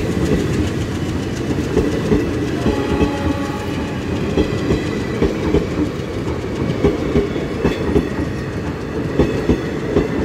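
Indian Railways passenger coaches rolling past close by at speed: a steady rumble with rapid clickety-clack of the wheels over the rail joints.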